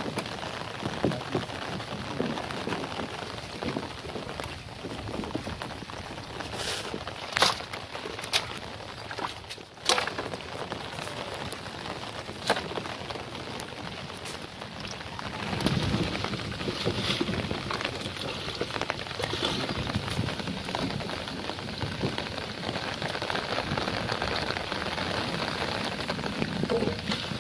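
Steady rain falling on pond water and into a wooden boat, with a few sharp knocks and splashes as branches are pulled about in the boat.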